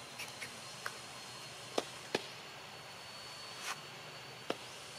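Scattered sharp clicks and snaps, about six in all, loudest two close together near the middle, with a short rustle-like burst later on. Under them runs a faint steady high-pitched tone over soft outdoor background hiss.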